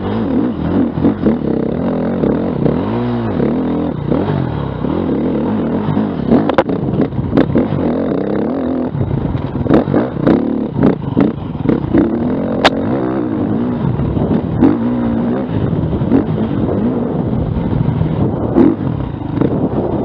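Dirt bike engine revving up and down as it is ridden hard off-road, with sharp knocks and clatter, most between about six and thirteen seconds in.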